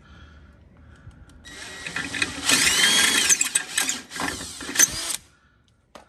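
Cordless drill running a step bit through the sway bar link mounting hole in a UTV's metal A-arm bracket, enlarging the hole to half an inch. The drill winds up about a second and a half in, whines up and down in pitch as the bit cuts, and stops suddenly about five seconds in.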